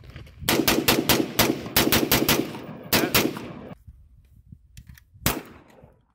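Handguns firing fast, two shooters at once: about ten rapid shots in two seconds, then two more shots, then a single last shot about five seconds in.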